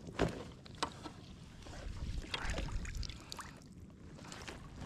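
Water splashing and lapping around a fishing kayak, with a few sharp knocks and clatters of gear being handled aboard; the two loudest knocks come within the first second.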